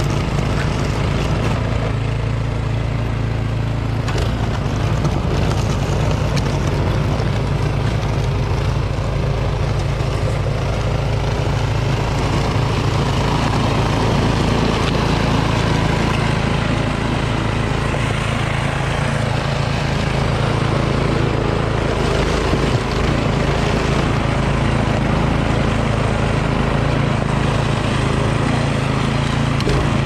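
Troy-Bilt Storm 2410 two-stage snowblower with a PowerMore engine running steadily under load, its auger and impeller churning powdery snow and throwing it out the chute.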